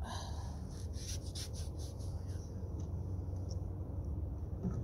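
Paint being worked onto a canvas: a run of short scratchy strokes in the first couple of seconds, fainter after, over a steady low rumble.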